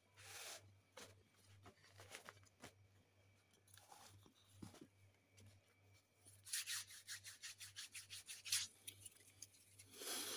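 Faint rubbing and scratching, with a quick run of scratchy strokes for about two seconds a little past halfway and a short louder scrape at the very end.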